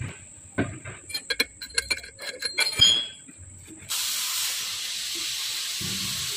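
A metal tool tapping and scraping on a freshly welded steel shaft: a quick string of clinks, the loudest about three seconds in with a short metallic ring. About four seconds in this gives way abruptly to a steady hiss.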